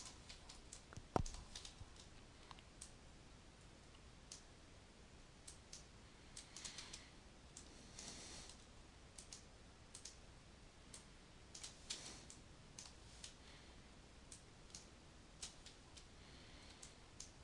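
Faint, irregular clicks of a computer mouse and keyboard keys, with one sharper click about a second in.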